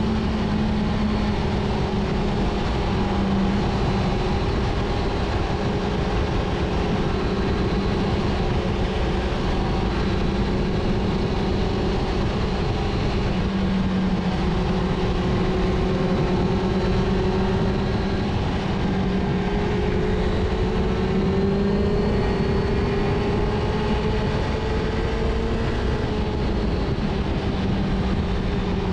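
Sport motorcycle engine running at a steady cruise, its note climbing slowly through the middle of the stretch, under heavy wind rush on the microphone.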